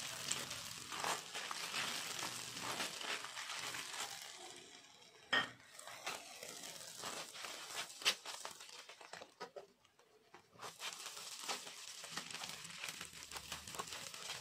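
Whole spices (cumin, cinnamon, cardamom, bay leaf, dried red chillies) sizzling and crackling in foaming butter and oil as they are stirred with a silicone spatula. The crackle dies away for about a second about two-thirds of the way through, and two sharper clicks stand out.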